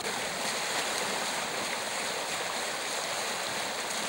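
Fast-flowing floodwater rushing, a steady loud wash of water noise with no breaks.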